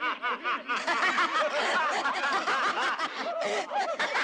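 Cackling laughter in quick repeated bursts, with several voices laughing over one another.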